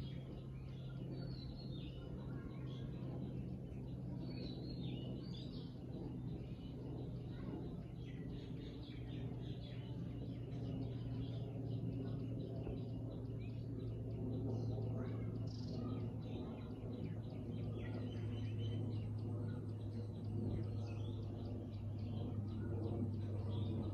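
Several small birds chirping and tweeting in short, overlapping calls and brief trills, over a steady low hum.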